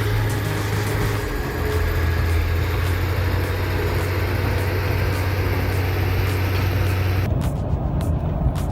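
A heavy vehicle's engine running steadily with a low drone. About seven seconds in, the sound changes abruptly to a rougher engine noise with scattered clicks.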